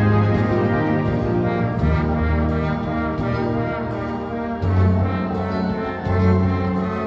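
High school marching band playing live: brass with trombones and trumpets over held low bass notes that change every second or so, with a steady percussion beat.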